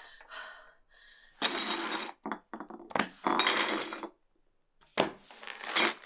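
Shards of broken ceramic clinking and scraping on a wooden floor in three short bursts, the last two each starting with a sharp click.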